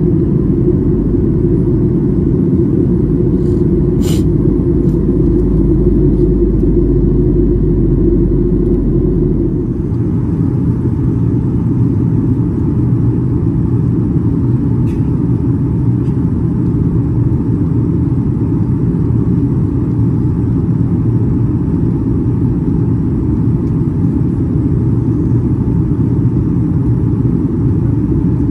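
Steady cabin noise of a Boeing 737-800 in cruise, heard inside the cabin beside the wing: a dense low rumble of engines and airflow. About ten seconds in, the tone shifts slightly as the deepest part of the rumble drops away.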